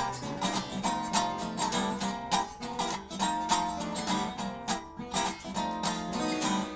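Guitar strumming blues chords in a steady rhythm of sharp strokes. The last chord is left ringing at the very end.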